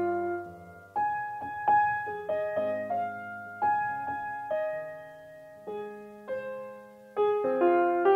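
Slow, gentle piano music: single notes and soft chords struck one after another, each left to ring and fade.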